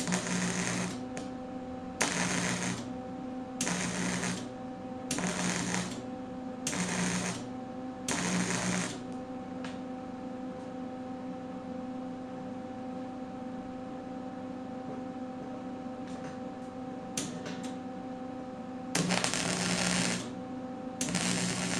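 Wire-feed welder crackling as it welds steel in short stitch runs: six bursts of under a second each over the first nine seconds, then a pause, then two more bursts near the end. A steady low hum runs underneath.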